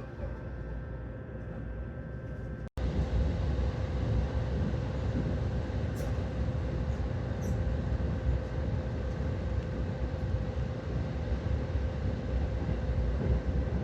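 Passenger train running: a steady low rumble with a faint steady hum. The sound cuts out for an instant about three seconds in and comes back louder.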